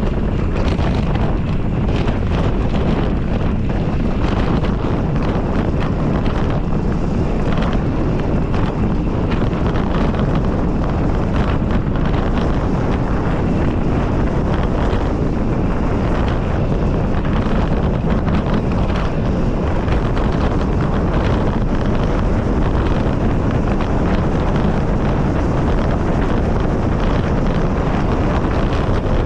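Wind rushing over the microphone on a mountain bike ridden at race pace, with frequent knocks and rattles from the bike over rough trail.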